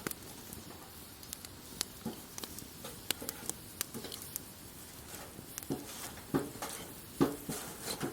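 Wood fire crackling, with scattered sharp pops at irregular intervals and a few duller knocks in the second half, the loudest about seven seconds in.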